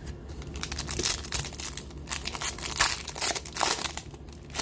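Foil wrapper of an Upper Deck Allure hockey card pack being torn open and crinkled in gloved hands: a run of sharp crackles, loudest about a second in and again around three seconds in.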